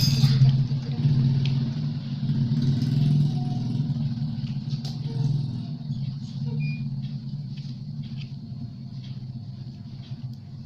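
A motor vehicle's engine running with a steady low drone that gradually fades, with a few faint clicks over it.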